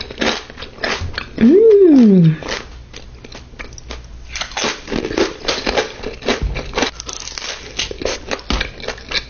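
Close-miked crunching of a hard taco shell being bitten and chewed, many sharp crunches in quick succession. About a second and a half in, a loud voiced sound rises and then falls in pitch for under a second.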